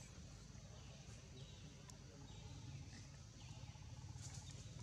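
Faint outdoor ambience among trees: a steady low rumble with short, high, falling chirps every second or so.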